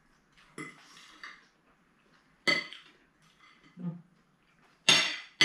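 Metal cutlery clinking and scraping on plates during a meal: a few separate sharp clinks, the loudest two near the end.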